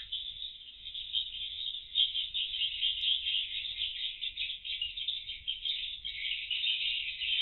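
Swiftlets twittering: a dense, unbroken chatter of fast high chirps, with a slightly fuller stretch from about six seconds in.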